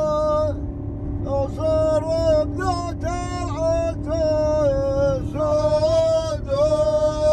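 A man singing long, held, wavering notes, with short breaks between phrases, over the steady low rumble of a vehicle driving.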